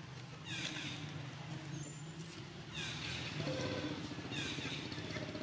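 Three bursts of high, squeaky chirping calls from an animal, over a steady low drone.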